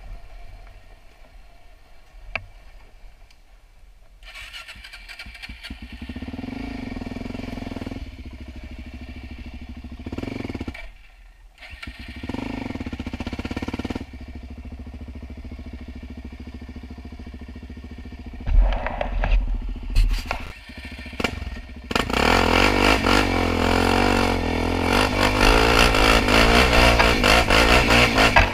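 Quad (ATV) engine running on a rough dirt trail: low and fairly quiet at first, picking up a few seconds in. A few short throttle blips come in the last third, then it revs hard and stays loud near the end.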